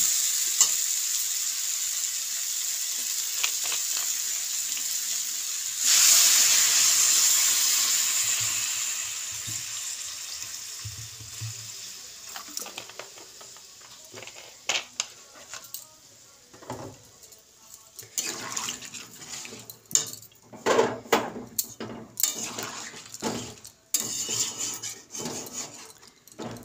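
Potato, pumpkin and chickpeas sizzling in a hot metal kadai while being stirred; about six seconds in, water is poured in and a loud hiss rises, fading over the next several seconds. In the second half a metal spatula scrapes and knocks against the kadai as the watery curry is stirred.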